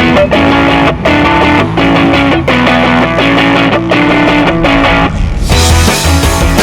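Background rock music led by electric guitar, with bass; about five and a half seconds in the full band comes in and the music gets louder.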